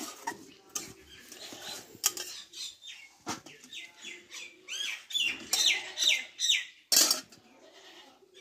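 Metal spatulas scraping and clinking against a steel karahi and a steel plate as cooked vegetables are served out, with sharp clatters, the loudest about three and seven seconds in. Short high chirps falling in pitch repeat between them: small birds calling.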